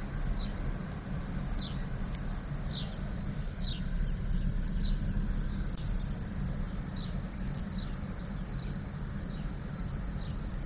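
Steady low rumble of a car driving, heard from inside the cabin, with a bird's short high falling chirps repeated many times throughout.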